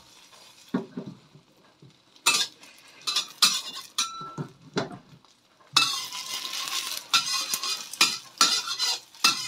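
Metal spatula knocking and scraping against a stainless steel wok while egg and chives fry in sesame oil. Separate sharp clinks come from about two seconds in, and the frying sizzle gets louder a little past halfway.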